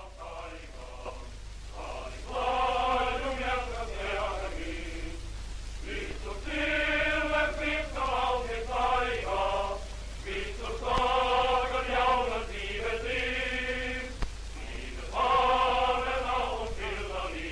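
Many voices chanting in unison in repeated phrases a few seconds long, with short pauses between, over a steady low hum from an old film soundtrack.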